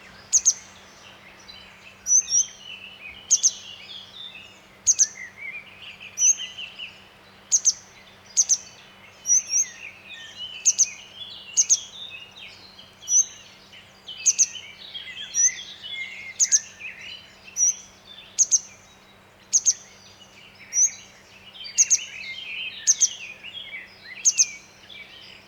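Grey wagtail giving sharp, high-pitched metallic call notes about once a second, some in quick pairs, over softer, lower twittering.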